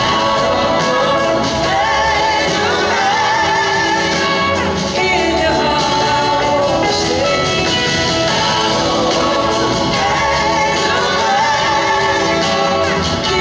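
A live rock band playing with singing: electric guitars, keyboards, drums and horns together, recorded from the audience.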